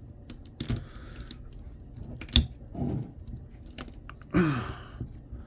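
Wire cutters snipping and snapping copper motor windings: a string of sharp clicks, the loudest about two and a half seconds in.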